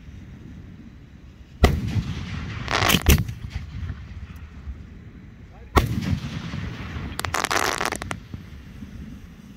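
Aerial firework shells going off: a sharp bang about one and a half seconds in, more bangs with a hiss around three seconds, another sharp bang near six seconds, then a spell of crackling hiss near the end.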